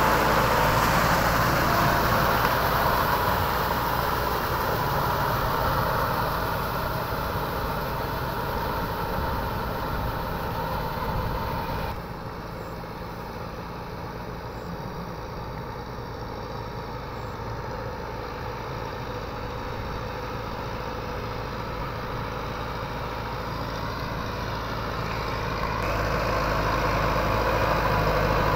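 Kubota MU5501 4WD tractor's diesel engine working steadily under load as it drives a rotavator through deep paddy mud. About twelve seconds in the sound suddenly drops to a more distant level, and it grows louder again near the end as the tractor comes close.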